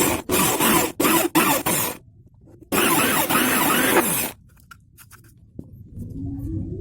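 Rough scraping strokes: four short ones in quick succession, then a pause and one longer stroke lasting about a second and a half.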